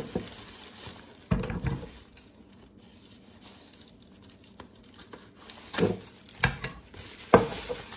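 White packing paper rustling and crinkling as wrapped parts are unwrapped by hand. It comes in a few irregular bursts, with a quieter stretch in the middle.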